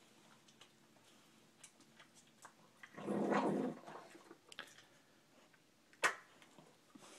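Lhasa Apso growling once, low and short, about three seconds in, a food-guarding growl over its pizza. Small scattered clicks of the dog eating run around it, and one sharp click comes about six seconds in.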